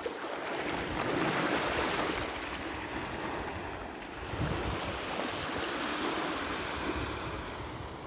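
Small waves of the Sea of Azov washing onto a sandy shore, the surf swelling and easing, with wind buffeting the microphone.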